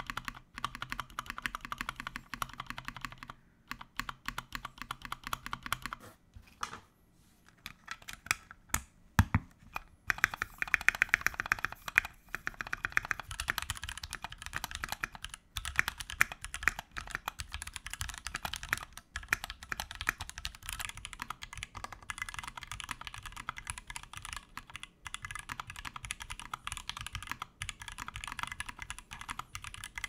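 Typing on mechanical keyboards in turn: a Tofu 60% with lubed Gateron Black Ink switches and modded stabilizers, and a Keychron Q2 with Gateron Pro Brown switches and stock stabilizers given extra lube. Fast keystroke clatter with a brief lull of a few separate key strikes around the middle. The Q2's spacebar and shift stabilizers sound less tuned than the Tofu's modded ones.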